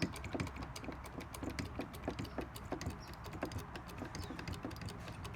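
Muzata hydraulic cable crimper being worked by hand to close its dies onto a cable sleeve until snug: a quick, irregular run of small sharp clicks, several a second.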